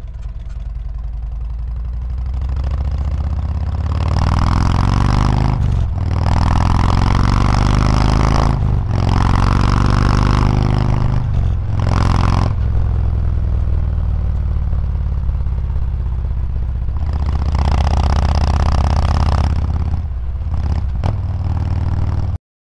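Harley-Davidson Street Glide Special's Milwaukee-Eight V-twin through an aftermarket Rinehart exhaust, pulling away and accelerating through three quick upshifts, the note dipping briefly at each shift. It then settles into a steady cruise, opens up again, and eases off before the sound cuts off abruptly at the very end.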